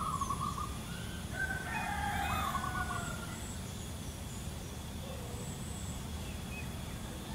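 A zebra dove's short trilling coo right at the start, followed about a second and a half in by a longer call of several notes from another bird.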